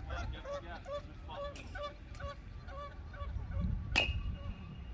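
Geese honking over and over in a steady series of short calls. About four seconds in, a metal baseball bat strikes a ball with a sharp ping that rings on briefly.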